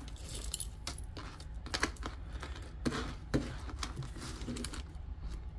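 Gold-tone metal chain necklace being handled: a scatter of small separate clicks and light rattles as the links and clasp move.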